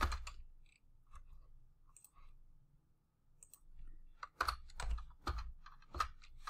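Computer keyboard keystrokes: a few scattered light taps, a quiet pause of about a second, then a run of louder key presses in the last two seconds.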